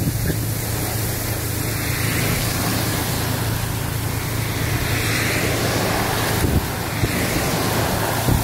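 Steady hiss of torrential rain and tyre spray on a flooded highway, over a constant low vehicle hum.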